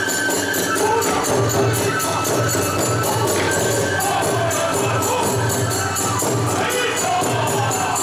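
Iwami kagura hayashi: small hand cymbals clashing in a fast, steady beat over a large drum, with a high flute melody above.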